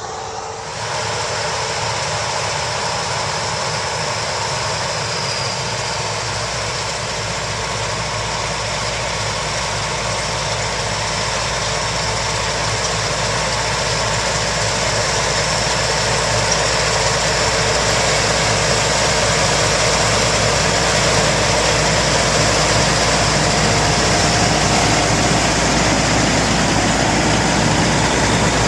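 Heavy farm harvest machinery running steadily under a constant engine drone, growing slightly louder through the stretch.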